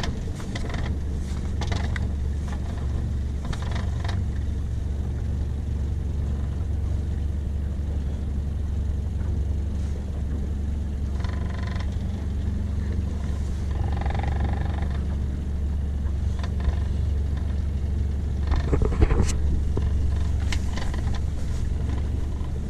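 Boat's outboard motor running steadily with a low, even hum while under way, with a few knocks near the start and again near the end.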